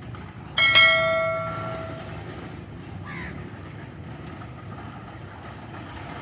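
A metal bell, plausibly the station bell, is struck about half a second in, rings out with several clear tones, and fades away over about a second and a half.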